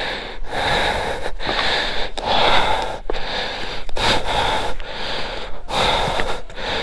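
A person breathing hard, a quick heavy in-and-out breath about once a second: panting from climbing a steep uphill path on foot.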